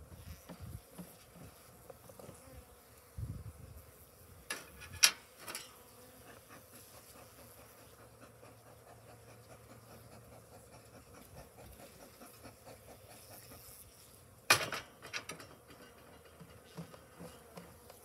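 Honeybees buzzing steadily around an opened hive. A few sharp knocks of wooden hive boxes being handled and set in place come about five seconds in and again near fifteen seconds.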